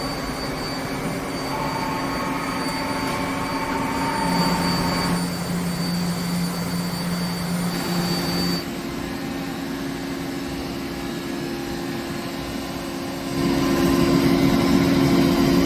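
Shop machinery running steadily with a whine. Its tone shifts about four seconds in and again about nine seconds in, and it grows louder about thirteen seconds in.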